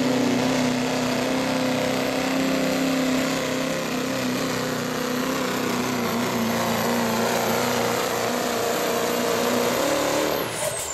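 Chevrolet Silverado diesel pickup's engine running hard at steady high revs while pulling a weight-transfer sled, with a faint high whistle above it. Near the end the whistle falls in pitch and the engine sound fades.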